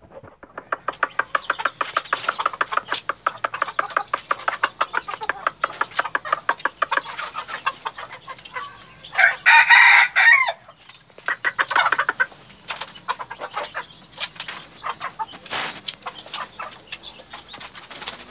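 A rooster crows once, a short crow of about a second and a half, about nine seconds in. Before it comes a long run of rapid short clicks or clucks, with more scattered clicks after.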